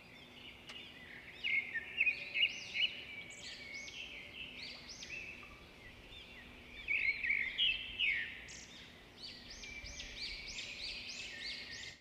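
Many short, high bird-like chirps, each rising and falling, overlapping in quick runs that swell around two seconds in and again around seven to eight seconds, over a faint steady low hum.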